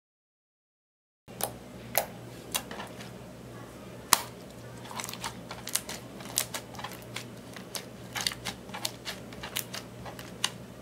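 Sticky purple slime being pressed and worked, giving sharp wet clicks and pops, starting about a second in, a few at first and then several a second. A low steady hum runs underneath.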